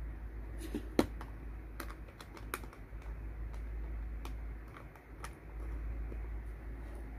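Irregular small plastic clicks and scrapes of a USB-A plug being worked into a USB tester, with one sharp click about a second in.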